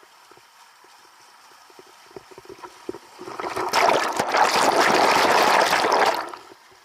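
Water splashing with a few knocks, then a loud rush of splashing water for about three seconds that stops suddenly.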